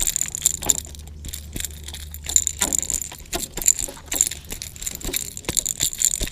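Irregular clicks and light metallic jingling from a freshly landed bream being handled: the fish flapping in hand and the surface popper's treble hooks rattling.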